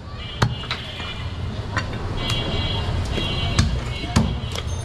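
A butcher's knife striking a wooden log chopping block while goat meat is cut: several sharp, irregular knocks. Faint music with steady high tones plays in the background for most of it.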